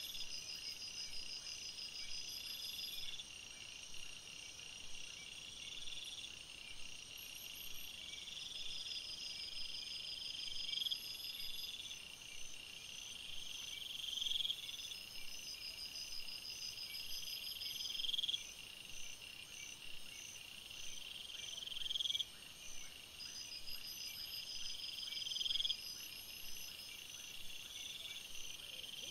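Night chorus of high-pitched trilling calls: a louder trill swells and cuts off abruptly every three to four seconds, over fainter pulsed trills and a continuous high buzz.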